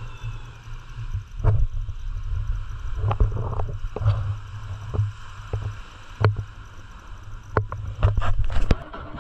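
Small wooden fishing boat at sea: a pulsing low rumble of wind on the microphone and water against the hull, with a series of sharp knocks and clacks on the boat. The loudest knocks come in a quick cluster near the end.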